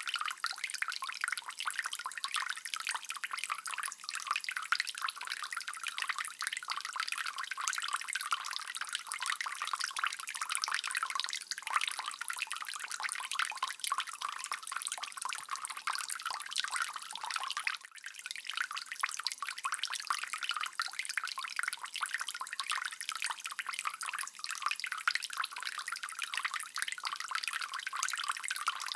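Water dripping: many small drops falling in quick, uneven succession, steady throughout, with a brief dip in level about eighteen seconds in.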